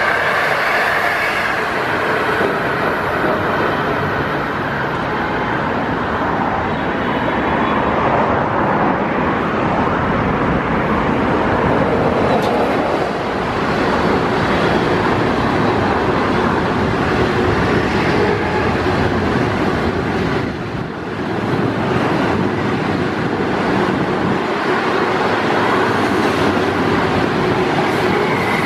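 A passenger train of green coaches passing at speed close by: a loud, steady rushing noise of steel wheels running on the rails, with a brief dip about twenty-one seconds in.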